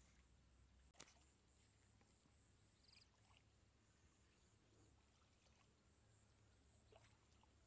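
Near silence: faint outdoor background with a low hum and a single faint click about a second in.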